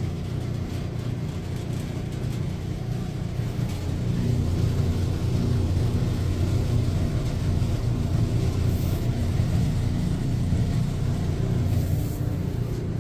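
Electrolux clothes dryer running with a steady low rumble and hum, a little louder after about four seconds. The noise comes from lint caught in the dryer's blower wheel, though the repairman at first suspects bad drum rollers.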